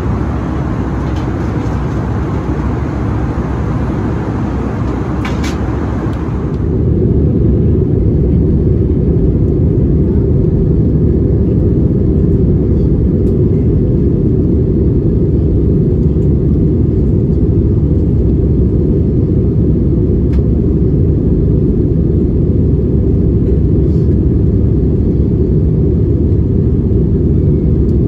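Airbus A320 cabin noise in flight: the steady rush and rumble of the engines and airflow. About six seconds in, after a short click, it becomes louder and deeper as the higher hiss drops away.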